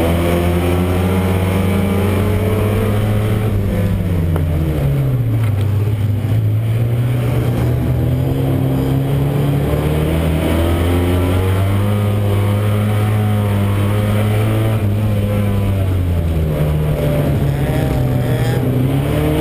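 Euro Rod oval racing car's engine heard from inside the car, running hard under racing load. The revs drop about four seconds in, climb back and hold steady, then dip again and rise near the end.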